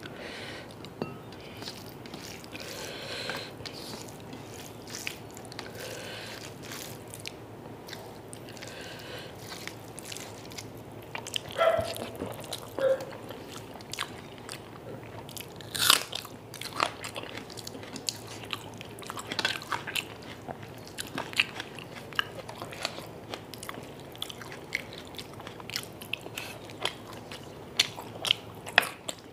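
Close-miked eating: chewing and mouth sounds of rice and chicken curry eaten by hand, with irregular sharp wet clicks and a few louder crunches.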